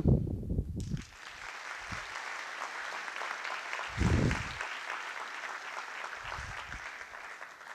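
Audience applauding at the end of a talk, steady, then dying away near the end. A low thump about four seconds in stands out above the clapping.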